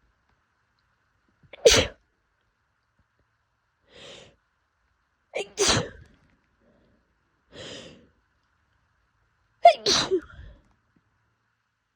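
A person sneezing in an allergy fit: three loud sneezes about four seconds apart, the last one broken into several quick bursts, with fainter breath sounds between them.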